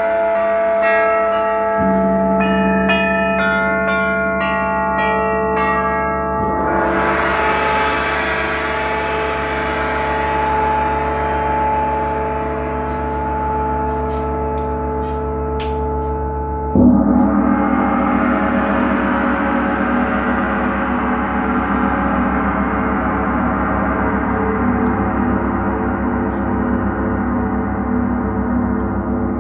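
Large suspended gong played with a soft felt mallet. A run of short, bright ringing notes comes in the first few seconds, then the gong's shimmering wash swells up and rings on. A louder stroke about 17 seconds in brings a fresh swell that keeps ringing.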